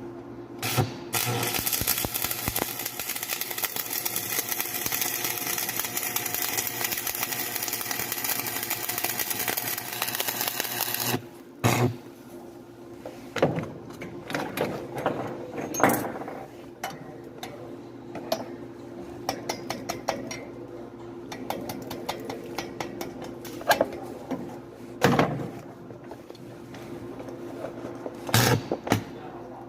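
Stick-welding arc with a 6013 electrode crackling steadily for about ten seconds, then stopping. Scattered sharp knocks and clicks follow, over a steady low hum.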